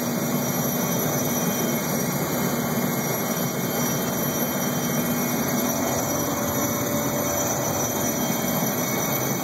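Erickson S-64 Air Crane helicopter's twin turbine engines and main rotor running steadily at hover power, heard from inside the cockpit, as it hovers low over water to draw a tank load.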